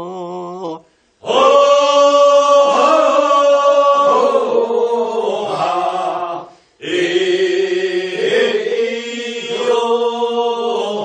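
Korean paddy-weeding work song (non maeneun sori): a group of voices singing the chorus refrain together in answer to the lead singer, whose line ends within the first second. The refrain comes in two long phrases with a short break for breath about halfway.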